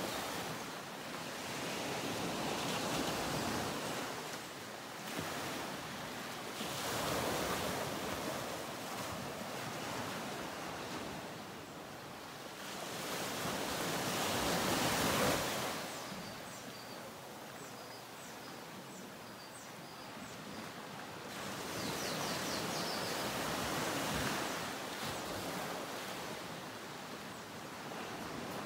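Ocean waves breaking and washing on a shore, in slow swells that rise and fall every few seconds.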